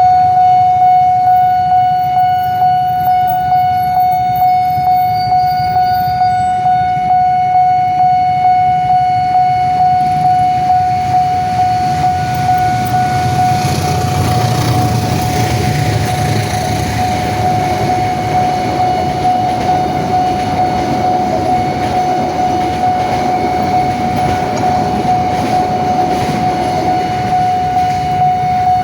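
Railway level-crossing warning alarm sounding a steady, pulsing single tone while the barrier is down. From about halfway, the rumble of a passing train rises beneath it, and the alarm cuts off suddenly at the end as the crossing clears.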